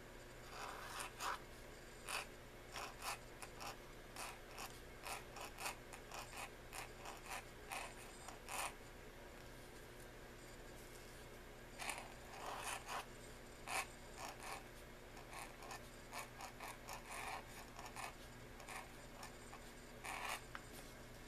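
Pointed steel nib in an oblique pen holder scratching across paper in many short strokes while writing a name in pointed-pen script. There is a pause of a couple of seconds near the middle.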